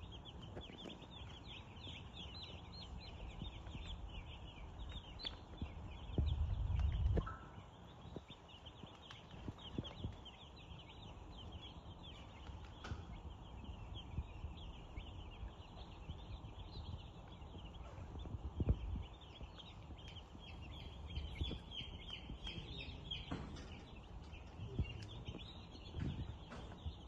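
A large flock of chickens in a poultry house keeping up a dense, continuous chatter of short high calls, with a brief low rumble about six seconds in.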